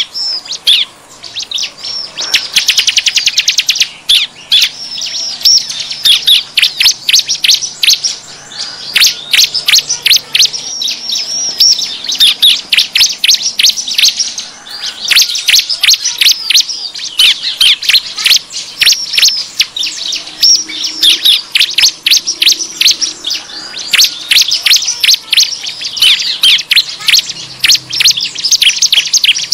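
Ciblek (bar-winged prinia) calling in a dense, unbroken stream of sharp high chirps, with a very fast trill about two seconds in. This is the agitated calling used as a lure to draw wild ciblek in.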